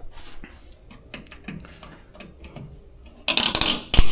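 A hand tool working an old mounting piece off a car's rear body: light clicks and creaks, then a loud scraping burst about three seconds in and a sharp crack at the end.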